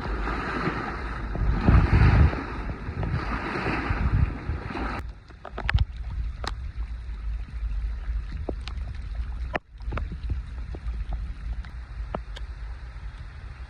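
Lake waves washing ashore in the rain, swelling and falling every second or two. About five seconds in this gives way to a quieter wash with scattered sharp ticks of raindrops. Wind rumbles on the microphone underneath.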